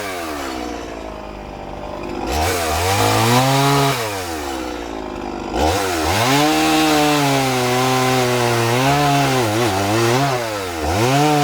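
Gas chainsaw blocking out a wood carving: it revs up to cutting speed, drops back to idle twice between cuts, and runs at high speed for the last several seconds with small dips as it bites.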